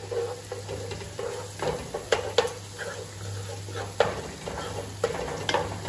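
Spatula stirring and scraping a blended onion, garlic and dried-shrimp paste frying in oil in a granite-coated non-stick pot. It makes light sizzling, with irregular clicks and knocks of the spatula against the pot.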